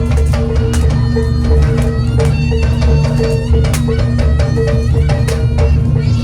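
Javanese jaranan (kuda kepang) music: drums striking a steady, quick rhythm over held droning tones.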